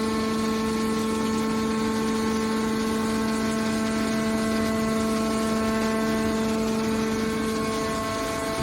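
Hydraulic power unit of a scrap metal baler running with a steady whine.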